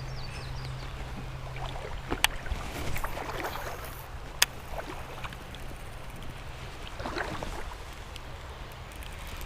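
Shallow creek water splashing and sloshing, with two sharp clicks about two seconds and four and a half seconds in.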